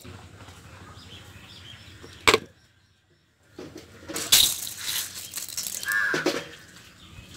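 Washed, drained rice tipped out of a perforated steel colander into a steel vessel: about three seconds of wet grains rustling and scraping against the metal, starting about three and a half seconds in. Before it there is a sharp click and a second of silence, and near the end a short falling squeak.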